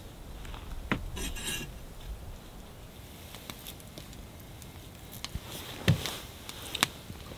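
Cookware and utensils clinking and knocking: a handful of separate sharp clicks, one ringing briefly about a second in, and the loudest knock about six seconds in.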